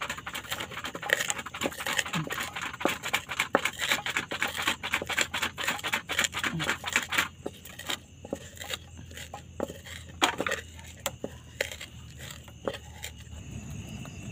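Pestle (ulekan) crushing and grinding garlic in a cobek mortar for sambal: rapid scraping knocks, thinning to scattered single knocks about halfway through.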